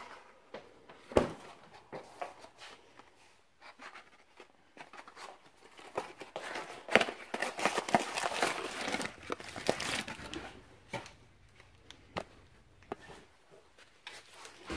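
Crinkling of a butter wrapper being handled and opened, strongest for a few seconds in the middle, among scattered clicks and knocks of kitchen handling and a single thump about a second in.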